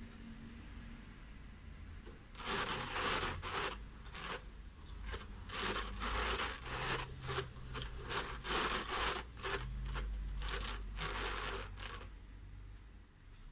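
Classic Carders drum carder being hand-cranked, fibre rasping through the carding cloth in a run of scratchy strokes, about two a second. It starts about two seconds in and stops shortly before the end.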